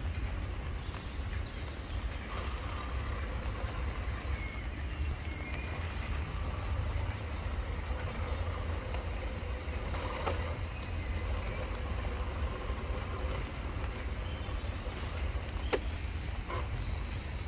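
Radio-controlled scale rock crawler (Vanquish VS4-10 Pro) creeping over wet wooden pallets, its electric motor and gears whining faintly and changing pitch with the throttle. Under it runs a steady low rumble with rain noise, and there is one sharp click near the end.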